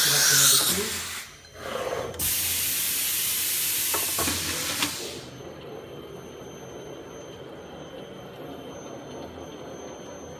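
CNC router's automatic tool change: compressed air hissing at the spindle as the tool holder is released and clamped, broken by a short pause about a second in, then hissing again for about three seconds with two sharp clicks near its end. After that the hiss stops and only a quieter, steady machine hum is left as the head moves away with the new tool.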